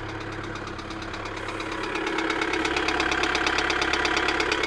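Kia Sedona 2.9 CRDi four-cylinder diesel running with a bad, rapid rhythmic knock, getting louder about two seconds in. It comes with a crankshaft/camshaft position correlation code (P0016), and the mechanic wonders whether the timing chain has jumped or is slack.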